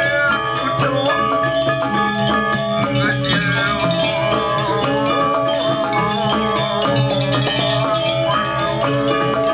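Balinese gamelan playing live for a dance: metallophones struck in rapid, dense runs over drums, with low sustained tones underneath.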